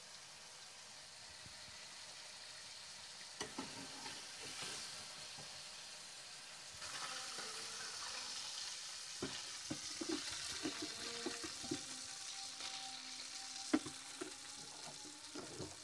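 Fish pieces frying in hot oil in a metal kadai: a steady sizzle that grows louder about seven seconds in. Over it come clinks and scrapes of a metal slotted spoon against the pan as the fried pieces are lifted out.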